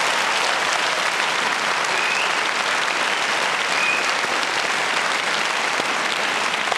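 A large audience applauding steadily, a dense unbroken clapping.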